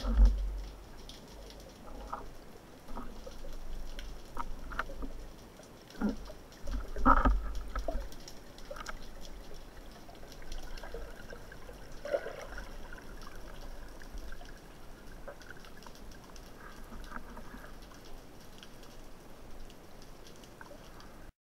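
Underwater sound picked up by a camera mounted on a speargun: a steady wash of water with many scattered clicks and knocks as the gun, its line and a speared fish are handled. Louder dull thumps come just after the start and again around six to eight seconds in.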